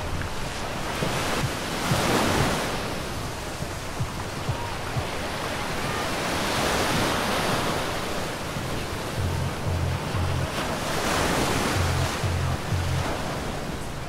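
Ocean surf breaking and washing up the beach, its rush swelling and fading in waves every few seconds, with some wind on the microphone. Beneath it, the bass beat of music comes through briefly at the start and again in the second half.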